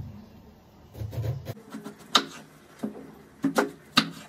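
Kitchen knife chopping through a cabbage onto a wooden cutting board: several sharp chops, starting about two seconds in.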